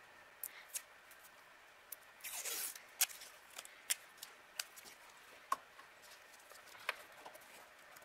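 Faint handling sounds of a wire being labeled: a brief rustle a couple of seconds in, and a few scattered sharp little clicks.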